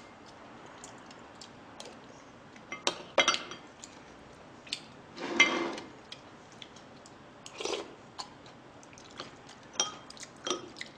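Metal spoon clinking and scraping against a small glass bowl of soup during eating: scattered light clinks, with two longer, duller sounds around the middle.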